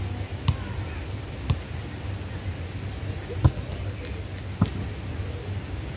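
A volleyball being struck by players' hands and forearms during a rally: several sharp, single hits a second or two apart, the loudest about three and a half seconds in.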